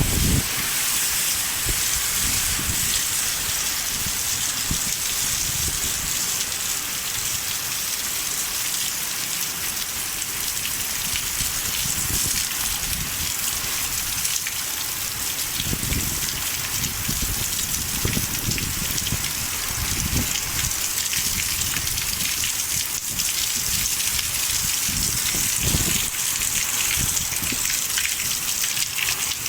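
Torrential rain hissing steadily as it pours down, with low rumbling gusts of wind swelling up now and then.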